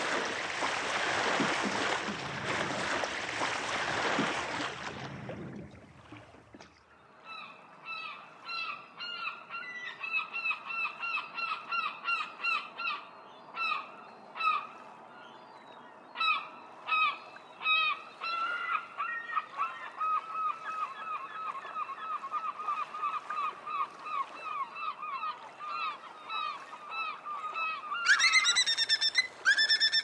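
A rushing noise for the first five seconds. Then a long run of short, honking animal calls, several a second, with louder, higher-pitched calls taking over near the end.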